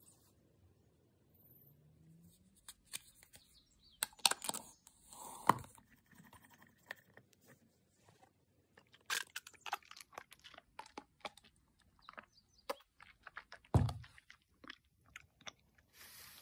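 Plastic straw pushed through a clear dome lid and worked around in a thick chocolate-banana dessert drink, scraping and clicking against the plastic cup in scattered clicks and knocks, with a heavier knock late on.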